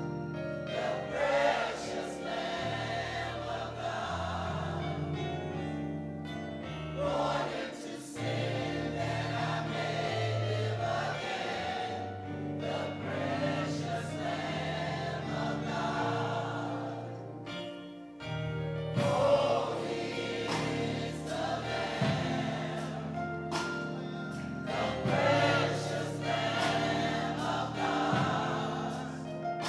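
Choir singing gospel music with instrumental accompaniment and a sustained bass line.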